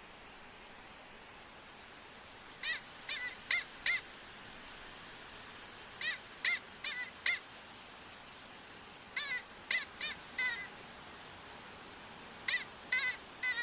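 An animal's short, high calls in groups of four. Each group lasts about a second and repeats about every three seconds, alike each time, over a faint steady hiss.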